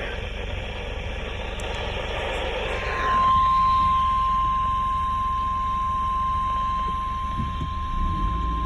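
Noisy hiss from a weather radio receiver. About three seconds in, the steady single-pitch 1050 Hz NOAA Weather Radio warning alarm tone starts and holds, sounded as part of the required weekly test.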